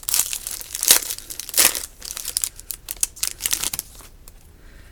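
Wrapper of a trading-card pack crinkling as it is torn open and handled: a run of crackles that stops about four seconds in.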